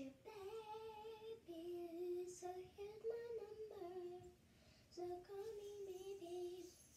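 A child singing a melody off camera, holding notes that step up and down, with a short pause about four and a half seconds in.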